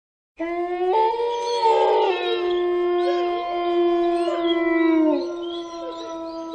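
Horror sound effect of eerie wailing howls: several overlapping long, held pitched cries that start abruptly about half a second in and slide downward in pitch now and then.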